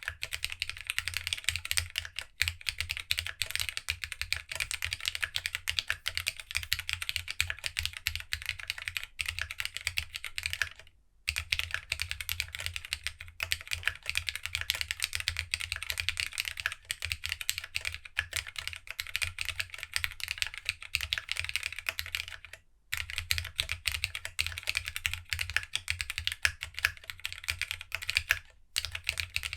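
Continuous fast typing on a plateless Geonworks W1-AT mechanical keyboard with Tadpole 90a linear switches, no foam and GSA-profile keycaps: a dense stream of keystroke clacks, with brief pauses about eleven and twenty-three seconds in.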